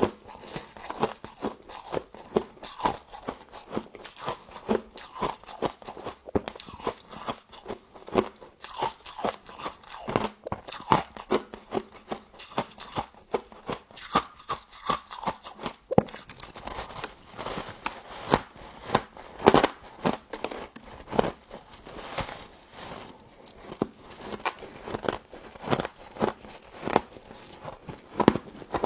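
Close-up crunching and chewing of frost from a humidifier: repeated crisp bites into the ice, with many short sharp crunches a second throughout.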